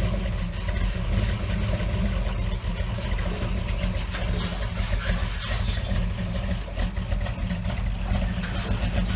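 Engine of a high-clearance swamp buggy running steadily at low revs as the buggy rolls down off a flatbed trailer's ramps.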